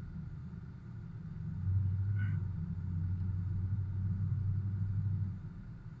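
Low rumble of a car driving on a snow-covered road, heard from inside the cabin: engine and tyre noise. It grows louder about a second and a half in, holds for a few seconds, and eases near the end.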